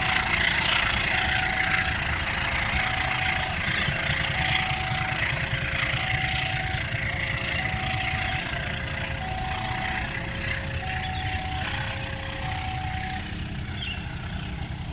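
Level-crossing warning alarm sounding an electronic two-tone chime, a higher and a lower note alternating, each held just under a second, over the low rumble of the train moving away; the alarm stops about two seconds before the end.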